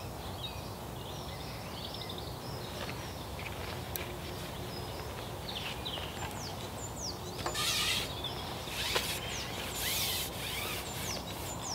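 Outdoor ambience: a steady low background rumble with small birds chirping now and then. About two-thirds of the way through come a few short bursts of rustling.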